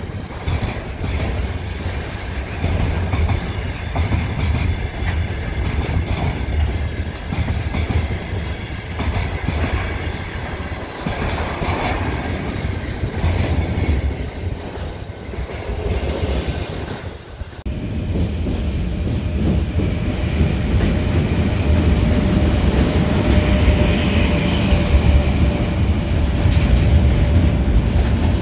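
Freight wagons of a long container train rolling past, wheels clattering over rail joints. About two-thirds through, the sound cuts to another freight train arriving behind a 2ES5K electric locomotive: a rolling rumble that grows louder, with a steady whine.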